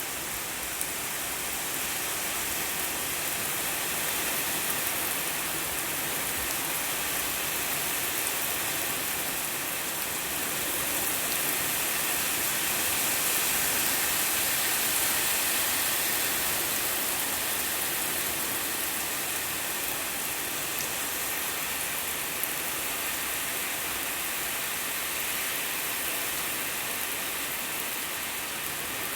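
Steady rain falling and pattering on surfaces, a little heavier around the middle.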